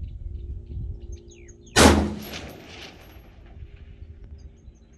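A single 5.56 mm shot from a 20-inch-barrel M16A2 rifle about two seconds in: a sharp crack followed by an echo dying away over about a second. Birds chirp faintly in the background.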